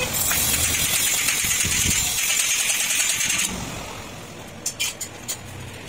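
Loud steady hiss over a low rumble that cuts off about three and a half seconds in, followed by a few sharp clicks near the end.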